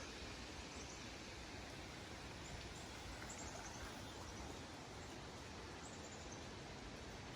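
Faint steady outdoor background noise with a few short, high bird chirps scattered through it.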